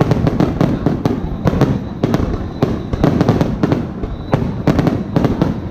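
Aerial firework shells launching and bursting in a rapid, continuous barrage: a dense run of sharp bangs, several a second.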